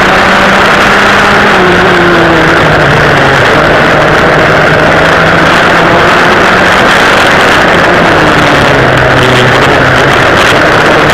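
Twin rear-mounted engines of a vintage racing go-kart running loud and hard at race speed, heard from on board. The engine pitch drops briefly about two seconds in and again around eight to nine seconds, then climbs back.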